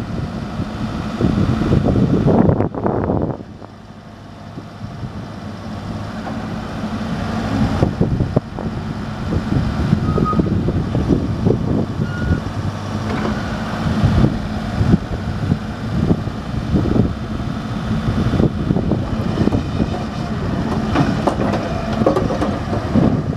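New Holland B95C backhoe loader's diesel engine running, with gusty noise over it. The sound drops off sharply about three seconds in, then builds back up over the following several seconds.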